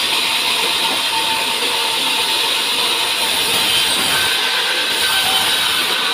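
Sawmill saw running steadily while a pine log is milled, a loud, even mechanical noise.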